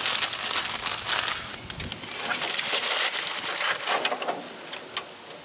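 Newspaper being crumpled and rustled by hand, a dense crackling full of small clicks that eases off near the end.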